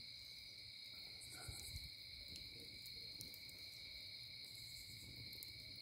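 A faint, steady chorus of night insects, an unbroken high-pitched trill, with a few faint ticks over it.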